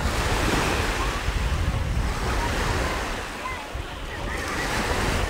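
Sea surf washing onto the beach, swelling over the first couple of seconds, easing, then building again near the end, with wind buffeting the microphone.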